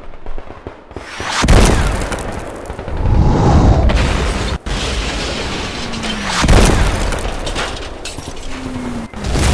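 Mixed World War I battle sound effect: artillery shells exploding in deep booms, the heaviest about a second and a half in and again after six seconds, over a crackle of rifle and machine-gun fire.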